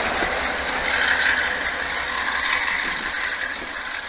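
Freight train's GE diesel-electric locomotive moving away at the tail of the train, its engine and wheel-on-rail noise fading steadily.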